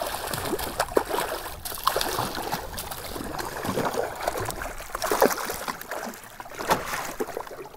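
Lake water lapping and splashing against the side of a fishing boat, with frequent small splashes and knocks.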